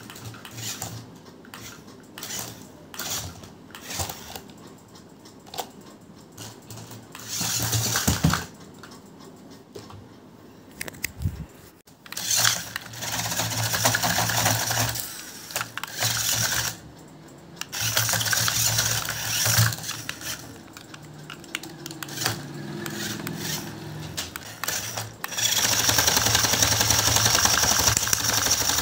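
A toy RC off-road car's small electric motor and gears whirring in stop-start bursts, with clicks and knocks in between as it climbs and tumbles over obstacles. From a few seconds before the end it runs steadily and louder, with a high whine.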